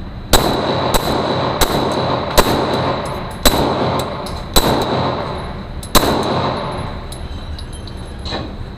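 Glock 17 pistol firing 9mm rounds semi-automatically, one shot per trigger pull: about seven sharp shots at an uneven pace, between about two-thirds of a second and a second and a half apart, each with a ringing echo. A fainter shot follows near the end.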